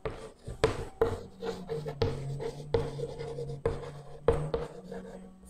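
Chalk writing on a green chalkboard: an irregular run of short taps and scraping strokes, over a faint steady low hum.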